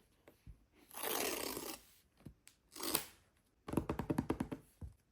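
Paper tear strips being pulled off the underside of a cardboard MacBook Pro box: a longer tearing rasp about a second in, a shorter one near three seconds, then a quick run of crackling rips near the end.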